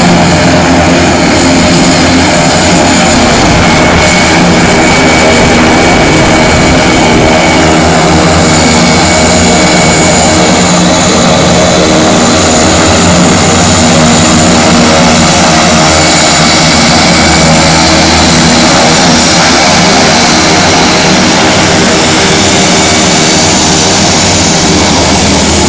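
Embraer T-27 Tucano turboprops taxiing, their engines running loud and steady: a propeller drone with a steady high turbine whine.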